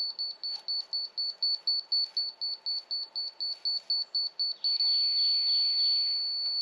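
Laser level detector beeping rapidly at one high pitch, about six or seven beeps a second, then switching to a steady tone near the end, the signal that it has found the laser beam's on-grade line.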